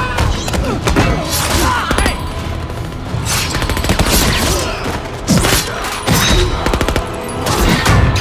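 Movie fight-scene soundtrack: rapid gunfire from soldiers' rifles and heavy impacts, dense and continuous, over background music.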